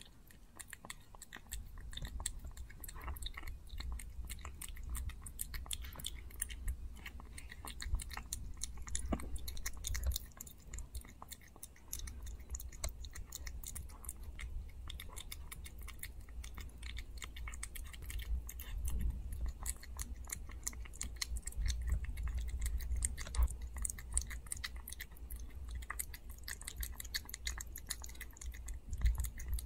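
Micro-size Chihuahua puppy licking and chewing a loaf of wet dog food: a dense, irregular run of small smacking clicks, over a steady low rumble.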